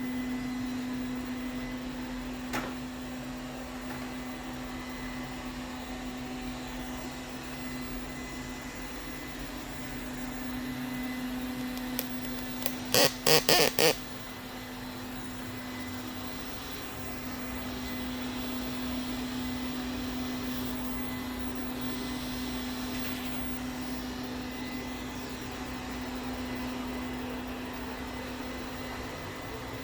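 Ziglint robot vacuum cleaner running: a steady motor hum with a constant low tone. About 13 seconds in, four short loud sounds come in quick succession.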